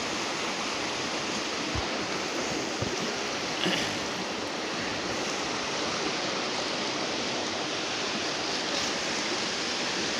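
Steady rush of river water, with a few light knocks about two to four seconds in.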